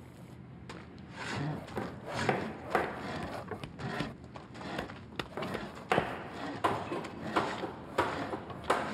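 A run of irregular sharp knocks and clacks, roughly one a second, over a soft rustling.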